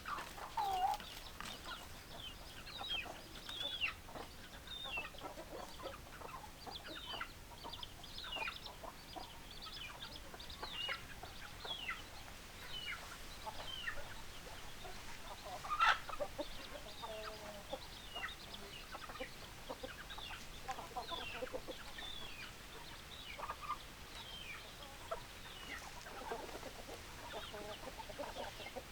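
A flock of chickens clucking, many short calls overlapping one another, with one louder, sudden sound about sixteen seconds in.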